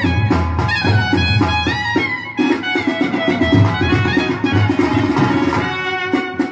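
Brass band music: a clarinet plays a gliding melody over a trumpet and a steady drum beat, with a short break a little over two seconds in.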